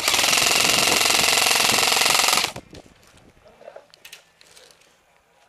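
Airsoft rifle firing one long full-auto burst of about two and a half seconds: a loud, fast mechanical rattle that stops abruptly.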